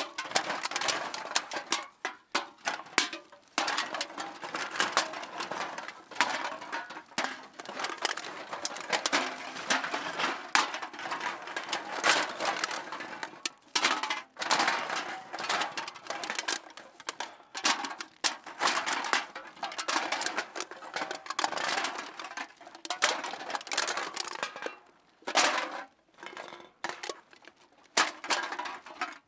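Metal cans being dropped into a bag, clattering and clinking against one another in a rapid, continuous series of impacts with a few short pauses.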